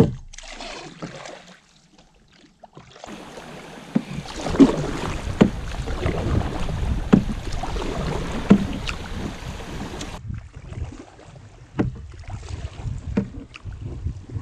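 Canoe paddling through a shallow rocky riffle: rushing water with wind on the microphone, and sharp knocks on the canoe every second or so. The sound drops almost to nothing for a moment about two seconds in.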